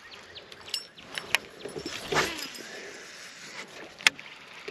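Fishing rod, reel and spinnerbait being handled: scattered small clicks and ticks, a brief swish about two seconds in, and a sharp click near the end.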